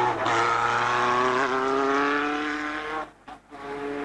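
Formula 3 racing car's four-cylinder engine accelerating hard at high revs, its pitch rising steadily. The sound drops out briefly about three seconds in, then returns still climbing.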